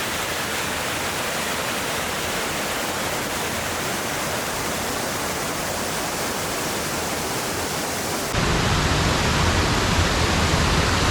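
Tarzan Falls rushing: a steady wash of falling water. About eight seconds in it jumps abruptly louder and deeper.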